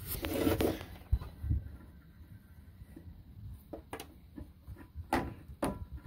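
Heavily corroded anode rod being drawn up out of a water heater tank by hand, making a short scraping rustle, a low thump about a second in, and a few sharp clicks against the fitting near the end.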